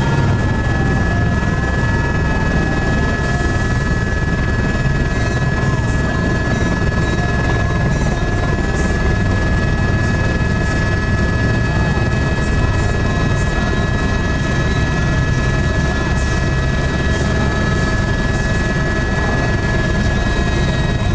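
Helicopter heard from inside its cabin: a steady, loud rotor and engine rumble with a constant high whine on top.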